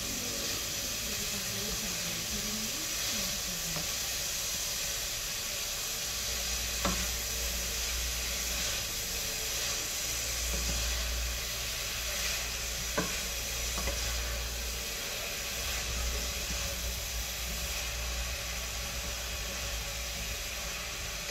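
Shredded cabbage and carrot sizzling in hot oil in a stainless steel pot as they are stirred with a wooden spatula: a steady frying hiss. Two sharp clicks, about a third and two-thirds of the way in, come from the spatula knocking the pot.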